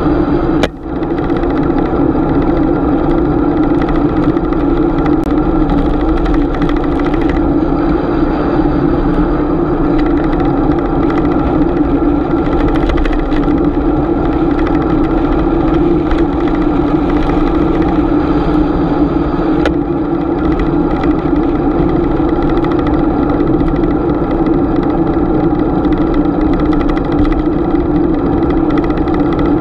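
Steady riding noise from a bicycle-mounted GoPro: a constant droning hum with road noise under it, broken once by a sharp click about a second in.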